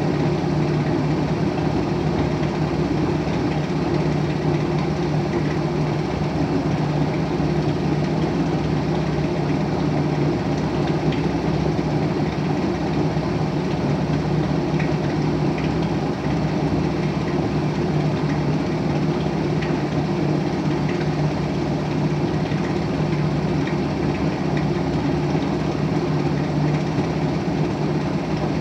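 Miele W 2597 front-loading washing machine in its intermediate spin: the motor and drum run steadily at speed, a constant low hum with a steady tone.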